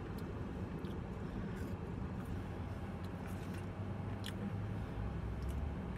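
Steady low vehicle rumble heard from inside a car cabin, with a few faint soft clicks while someone eats fries.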